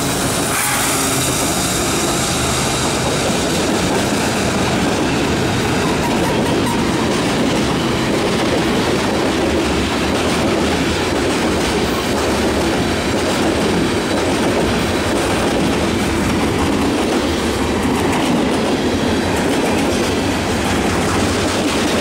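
CN freight train's cars (covered hoppers, then centerbeam lumber cars) rolling past at speed, a steady, loud noise of steel wheels on rail.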